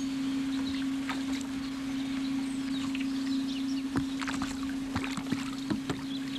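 A steady low electric hum with scattered light knocks and clicks.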